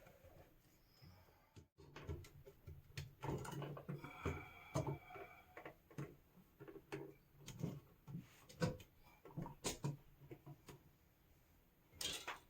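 Irregular small clicks, knocks and brief scrapes of hand work on a GFCI receptacle as its neutral and bare copper ground wires are fitted under the terminal screws and tightened.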